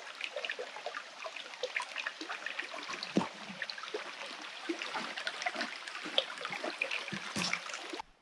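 Small, shallow creek trickling and babbling over rocks, with a single low thump about three seconds in; the sound cuts off suddenly near the end.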